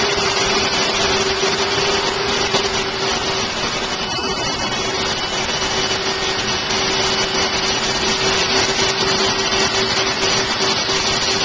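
Electric fan-driven equipment running steadily: a continuous whir with one constant mid-pitched whine.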